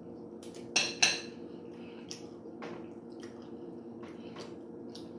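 A fork clinking and scraping against a ceramic bowl of rice: two sharp clinks about a second in, then lighter scattered taps. A steady low hum runs underneath.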